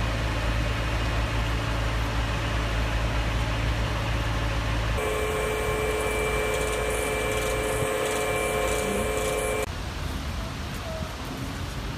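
Engine of a heavy truck-mounted recovery crane running steadily. From about five seconds in to nearly ten seconds, a steady mechanical whine of several even tones takes over.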